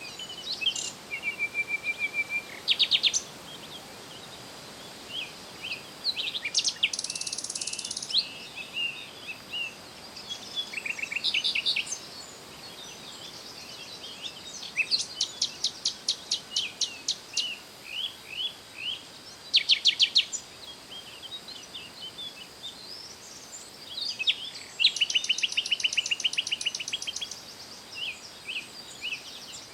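Songbirds calling and singing: bursts of fast trills, rapid runs of evenly spaced high notes and short chirps, with pauses between them, over a faint steady high tone.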